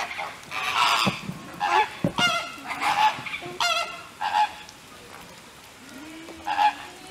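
A flock of flamingos calling: a quick run of separate calls through the first four seconds or so, a lull, then a few more calls near the end.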